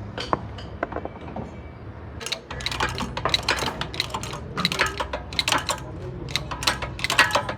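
Rapid, irregular metallic clicking of hand tools on car parts, which thickens into a dense run of clicks about two seconds in, over a steady low hum.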